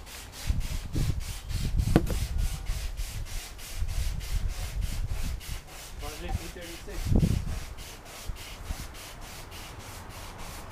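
Hand sanding on the painted bodywork of a BMW E36, sandpaper rubbing over the panel, with a sharp knock about two seconds in and a dull knock about seven seconds in.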